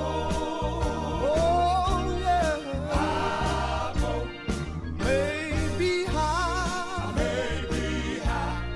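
Recorded gospel song: a lead singer with a wavering vibrato over bass and a steady drum beat.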